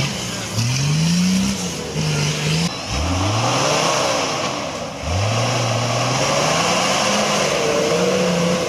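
Off-road competition vehicle's engine revving hard in repeated bursts, the pitch climbing quickly each time and then holding, about three times, with a higher whine rising and falling alongside.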